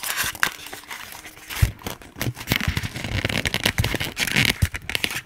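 Packaging of a model train box being worked at by hand, with irregular scraping, rustling and crinkling and many small knocks and clicks, a few of them sharper: a tightly fitting locomotive being pulled out of its box.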